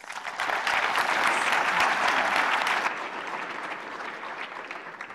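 Audience applauding, building quickly to full strength, then easing off about three seconds in and thinning out near the end.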